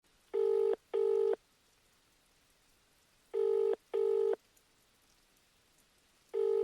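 Telephone ringing tone heard down the line, in the double-ring pattern: two short steady tones close together, repeated every three seconds, twice, with the third double ring starting near the end.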